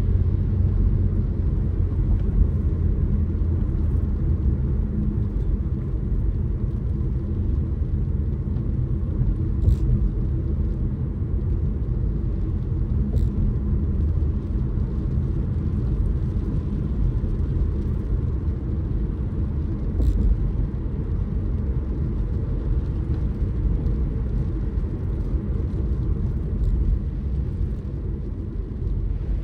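Car driving: steady low rumble of engine and road noise, with a few light clicks.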